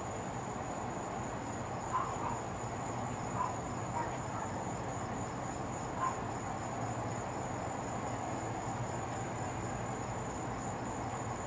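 Night insects trilling in one steady high note over a low background hum, with a few faint short sounds about two, three and a half, four and six seconds in.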